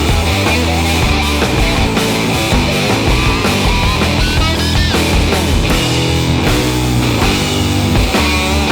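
Background rock music with a steady beat and electric guitar, heavy-metal style.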